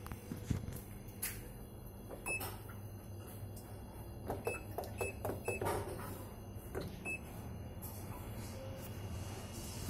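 Buttons being pressed on a Midea top-load washing machine's control panel: a few clicks, each with a short high beep, about five beeps in all between about two and seven seconds in, over a low steady hum.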